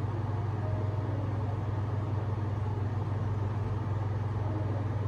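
A steady low hum with a faint even hiss underneath, unchanging throughout: constant machine or electrical background noise.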